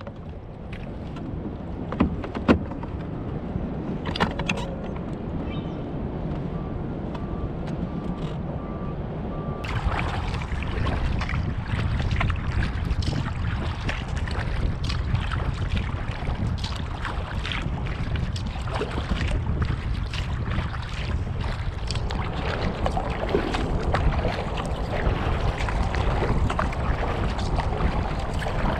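Kayak paddle strokes splashing in river water, with wind rumbling on the microphone. Two sharp knocks about two seconds in.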